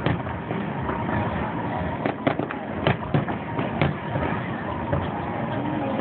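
Aerial fireworks bursting at a distance: a string of sharp bangs at irregular spacing, several in quick succession around the middle, over a steady background hum.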